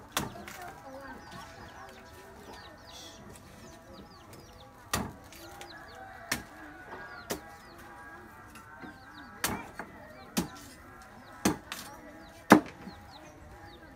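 Chickens clucking in the background with small birds chirping faintly, broken by about eight sharp clicks or knocks at irregular intervals, the loudest near the end.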